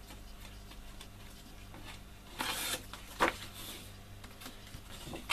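Cardstock and double-sided tape being handled: light paper rustling, a short ripping rasp about two and a half seconds in, and a sharp tap just after.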